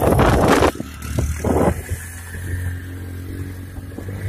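Motorcycle engine running steadily at low speed. A loud rushing noise covers the first second, with two short bursts of it soon after.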